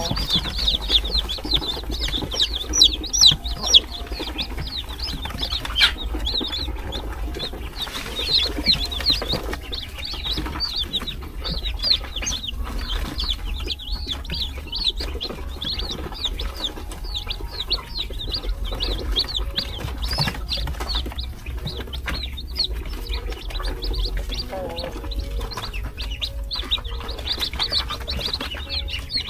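A box of newly hatched chicks peeping: many short, high cheeps overlapping in a continuous chorus.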